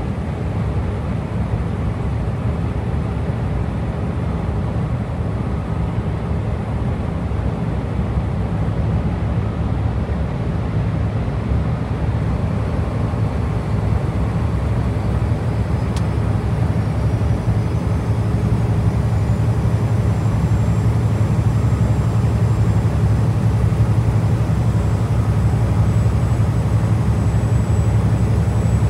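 Scania V8 diesel truck engine running steadily on the road, heard from the cab as a low drone. A faint high whine rises in pitch from about halfway through, as the drone grows slightly louder.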